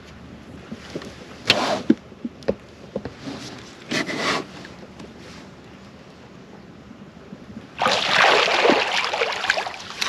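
Hooked wels catfish splashing at the surface beside an inflatable boat: two short splashes, then a louder bout of splashing lasting about two seconds near the end.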